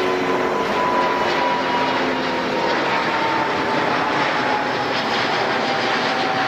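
Jet noise from an Airbus A350-900's Rolls-Royce Trent XWB turbofans passing low overhead: loud and steady, with a whine that slowly falls in pitch.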